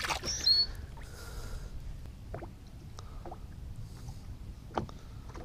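Low wind-and-water noise around a small fishing boat, with a short high squeak near the start and a handful of light knocks and clicks scattered through.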